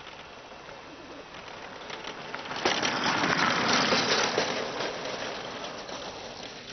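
A small pedal go-kart's hard plastic wheels rolling past over gritty asphalt. The crackling tyre noise swells as the kart nears, is loudest about three to four seconds in, then fades as it moves away.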